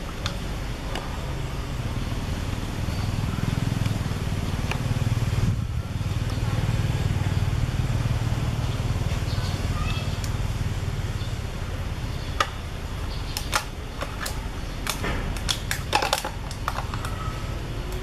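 Low engine rumble of a passing motor vehicle, swelling over several seconds and then easing off. Near the end come a series of short, sharp clicks and snaps.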